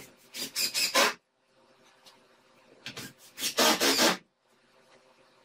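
Drill driving wood screws into a plywood boat hull panel: two short runs, about a second apart, the second a little longer than the first.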